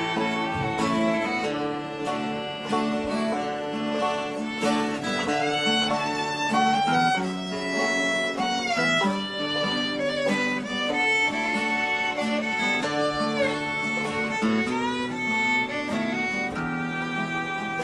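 Instrumental country-style music: a fiddle carries the melody with sliding notes over acoustic guitar.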